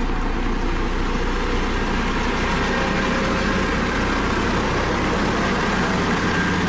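Dynapac CC522 double-drum asphalt roller running steadily, its diesel engine giving a constant low hum under a steady mechanical noise.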